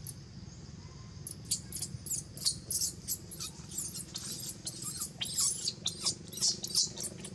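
Newborn macaque squealing in distress: a rapid run of short, very high-pitched squeaks, about three or four a second, starting about a second in.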